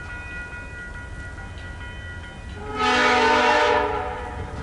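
VIA Rail P42 locomotive 918's horn sounding one blast of about a second and a half, a little past halfway, over the low rumble of the approaching train.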